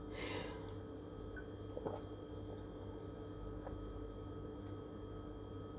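A short slurping sip of blended fruit juice from a mug, followed by a steady low hum with a light click about two seconds in.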